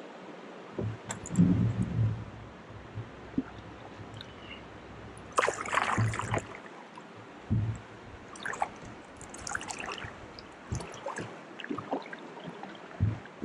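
Kayak paddling: a double-bladed paddle dipping and splashing into the water stroke after stroke, with dripping between strokes and a few low thumps from the boat.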